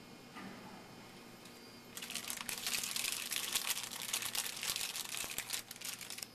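A foil wrapper of a 2009 Upper Deck Icons baseball card pack being torn open and crinkled in the hands: a dense, crackling rustle for about four seconds, starting about two seconds in.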